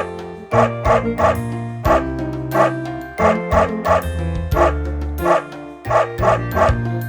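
Short, high dog barks and yips in time with the beat, mostly in pairs, over a children's song backing track with a steady bass line.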